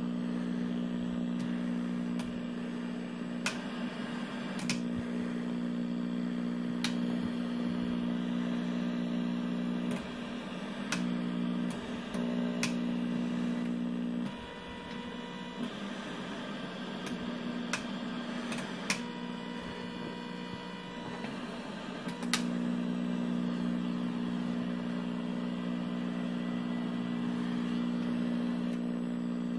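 Steady low electrical buzz from the speaker of a 1983 RCA ColorTrak TV showing test patterns from a pattern generator. The buzz changes tone a few times as the patterns are switched, and the generator's switches click now and then. A higher steady tone joins in for several seconds midway.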